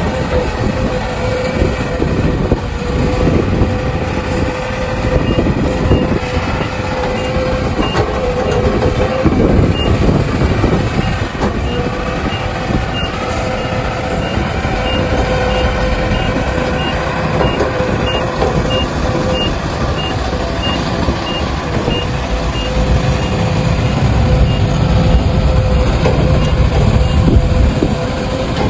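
Heavy diesel earthmoving machinery, an excavator and dump truck, running under load with a low rumble. A backup alarm beeps steadily, about once every half second or so, from a few seconds in until near the end.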